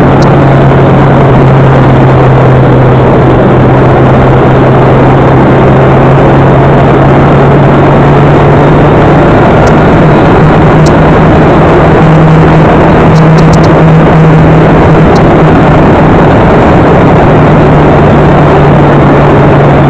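Motorcycle engine running at steady cruising speed under loud wind noise on the microphone. The engine note rises a little about halfway through, then settles back a few seconds later.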